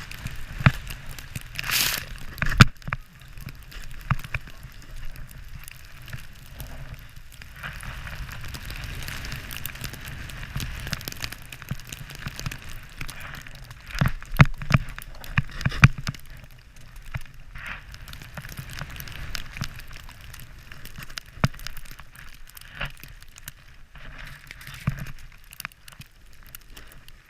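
Skis sliding and turning through snow, a steady crackling hiss with scattered clicks and several louder knocks, over a low rumble of wind on the microphone.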